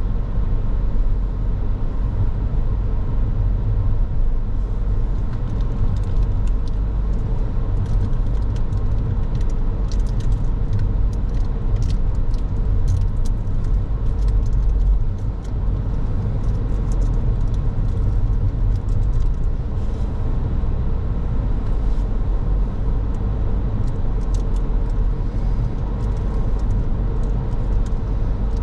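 Car on the move: a steady low rumble of road and engine noise, with light clicking rattles scattered through the middle.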